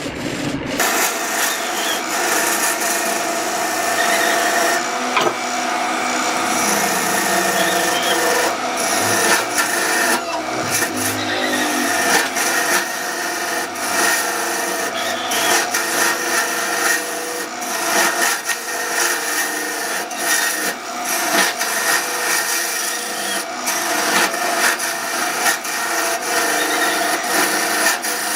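Wood lathe running with a steady hum while wood is worked on the spinning workpiece, giving a continuous scraping noise with irregular scratchy ticks. The sound changes about a second in.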